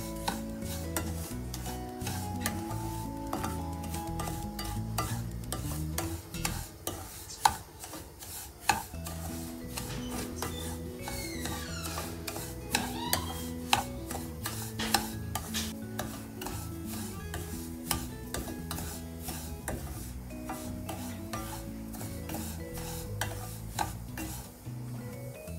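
A spatula stirring and scraping semolina (rava) roasting in a little oil in a stainless steel pan, with frequent sharp taps against the metal and a faint sizzle. Background music plays underneath.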